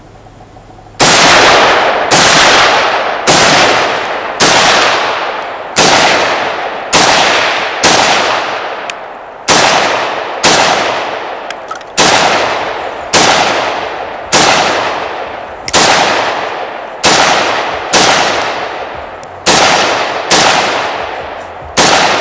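AK-47 rifle (7.62×39mm) fired semi-automatically: about twenty single shots at roughly one a second, starting about a second in, each sharp crack trailing off in a long echo.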